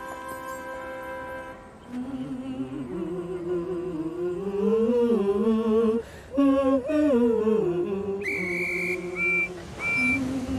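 Background music: a held chord dies away, then a slow melody plays. Near the end come three short, high whistle toots.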